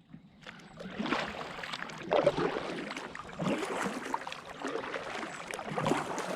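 Kayak paddle dipping and pulling through water with splashing, about one stroke every second or so, five strokes in all.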